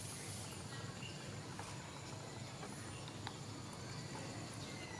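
Faint outdoor background: a steady low rumble with a few short, high chirps near the start and again about three seconds in, and some faint ticks.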